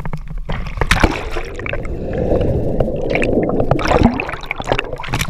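River water splashing and lapping against a camera held at the surface, with a sharp splash about a second in. Then comes a couple of seconds of muffled underwater bubbling as the camera goes under.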